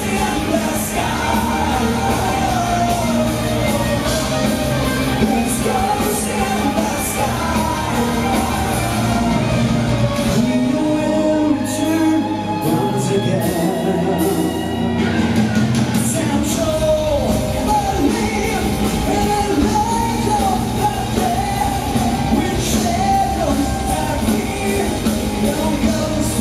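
Power metal band playing live: electric guitars, bass, drums and a lead vocal singing the melody. About halfway through, the bass and drums drop out for a few seconds, then the full band comes back in.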